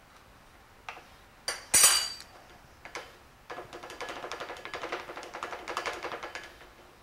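Plastic sieve shaken over a glass bowl to sift flour: a fast, even run of small taps and rattles as it knocks against the bowl in the last few seconds. Before that, a few knocks and one sharp, ringing clink about two seconds in.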